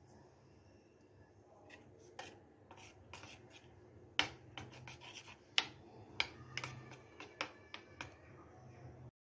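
Steel spoon clicking and scraping against a small steel bowl while stirring thick chutney: a dozen or so irregular taps, some with a short metallic ring, loudest about four and five and a half seconds in.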